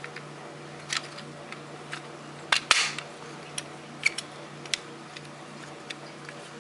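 Plastic smoke alarm being handled: a string of light clicks and taps, with a louder pair of clacks about two and a half seconds in.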